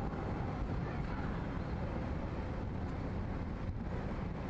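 Steady rumble of street traffic at a tram junction, with an Alstom Cityway low-floor tram running on the street track. It is an even noise without distinct knocks, bells or horns.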